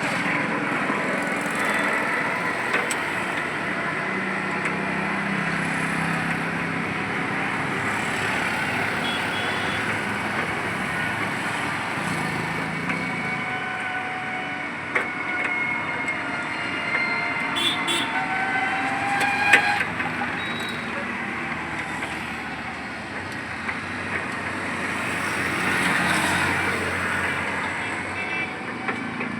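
Steady road traffic with vehicles passing and the whine of motors rising and falling. A few sharp metallic clicks sound just past the middle.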